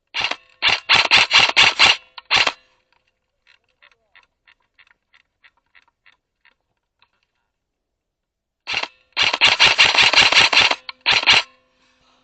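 Airsoft replica firing in rapid bursts: a run of shots near the start and another longer run about nine seconds in. Faint, evenly spaced ticks fill the gap between them.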